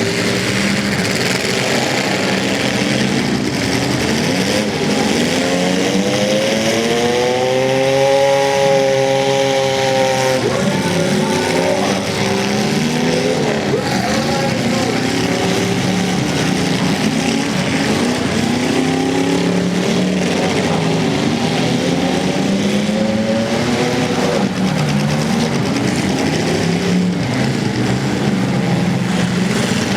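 Several demolition-derby cars' engines revving at once, their pitches repeatedly rising and falling over one another as the cars accelerate and back off.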